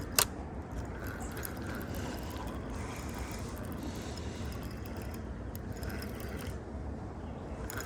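Steady low background rush of flowing river water and distant road traffic, with one sharp click just after the start.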